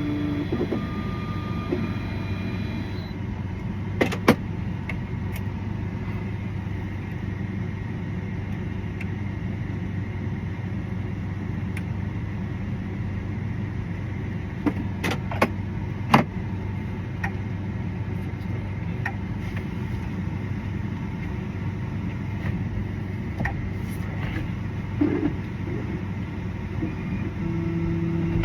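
Vehicle engine idling steadily, with a few sharp clicks about four seconds in and again around fifteen to sixteen seconds in.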